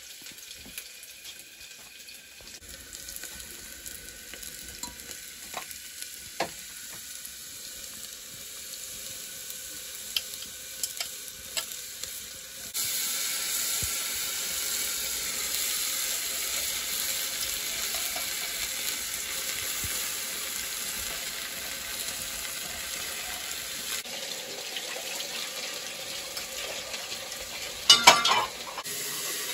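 A few faint clinks, then, about a third of the way in, a steady sizzle of food frying in an aluminium pressure cooker over a wood fire, which runs on through most of the rest. A short loud clatter comes near the end.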